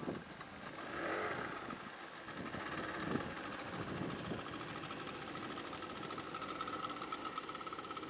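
Outboard motor on a small river tour boat running steadily under way, a steady whine that comes in about a second in and grows stronger toward the end.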